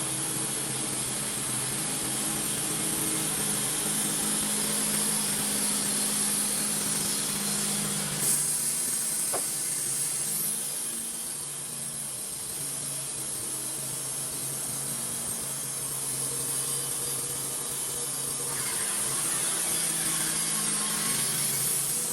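Wood-Mizer portable band sawmill running steadily, its engine droning under the hiss of the band blade cutting through a log. A single sharp knock comes about eight seconds in.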